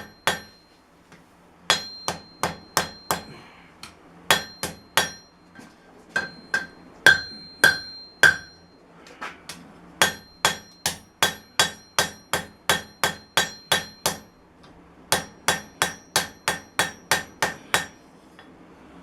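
Hammer blows on hot steel against an anvil as a wrench is forged into a karambit knife, here working the handle. The strikes come in runs of several at about two a second, with short pauses between runs, each with a brief metallic ring.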